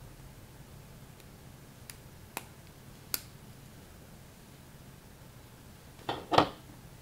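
Plastic LEGO-style building bricks from a knock-off set being handled and snapped together. There are three light, sharp clicks, then a louder clatter of two clacks near the end.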